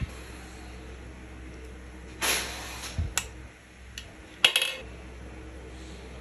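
Metal engine parts being handled as bearing shells are fitted into connecting rods in an engine block: a few light metallic taps and clinks, the sharpest about four and a half seconds in, with a brief ring.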